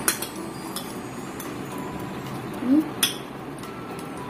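Metal spoons and forks clinking and scraping on plates of rice, with a sharp clink at the start and another about three seconds in. A short rising tone comes just before the second clink.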